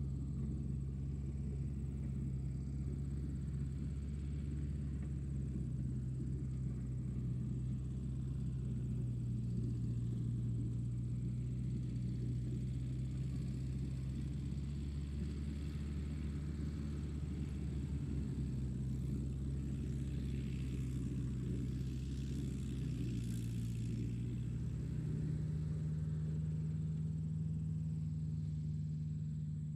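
Tractor engine running steadily, a low drone whose pitch steps up about 25 seconds in.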